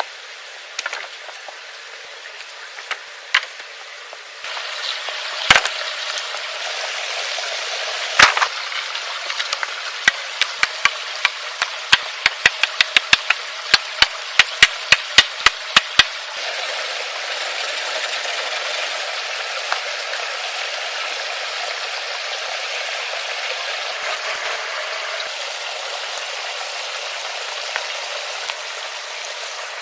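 Steady rush of a woodland stream, with sharp wooden knocks over it: two heavier ones, then a quick run of about three knocks a second for several seconds. The knocks come as poles are handled and set for a lean-to shelter frame.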